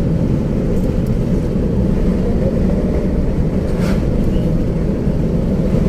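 Steady low rumble of a car driving at road speed, with tyre, engine and wind noise heard from inside the cabin.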